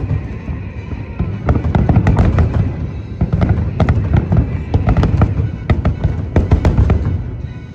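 Fireworks show: rapid sharp cracks and booms over a dense low rumble, with the show's music playing underneath. Near the end the bursts thin out and the music carries on.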